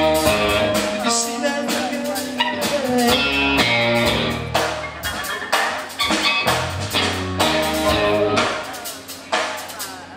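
Live rock band playing: two electric guitars, one picking out lead lines, over a drum kit.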